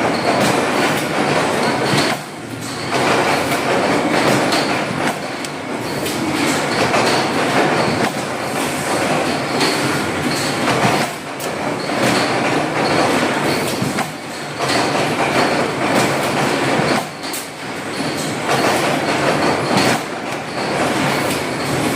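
Multi-tool automatic CNC machine running and cutting: a dense, steady machining noise broken by frequent sharp clicks and knocks, with a faint high whine that comes and goes.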